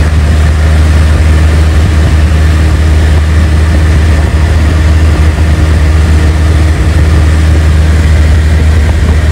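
Loud, steady drone of a Cessna 172's piston engine and propeller in flight, heard from inside the cabin.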